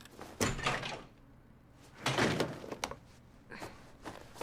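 A door opening and closing, with two rough, scraping bursts about a second and a half apart and a few sharp knocks near the end.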